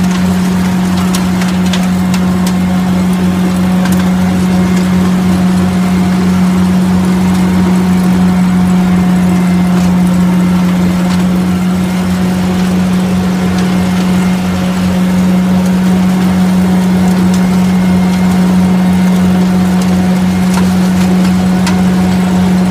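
Brouwer BV138 lawn vacuum, driven off the PTO of a Kubota B7800 diesel tractor, running steadily with a loud constant hum. Leaves and grass drawn up through the pickup head and hose crackle and tick throughout.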